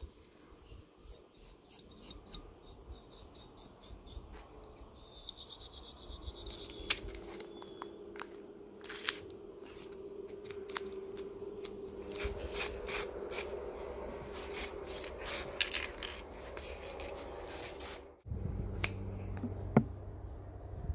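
Hand cleaning of small metal lamp parts: steel wool scrubbed in quick, even strokes over the metal bezel of a pressure gauge, then a pad rubbing a small metal ring, with scattered sharp clicks. The sound changes abruptly to a steadier low sound near the end.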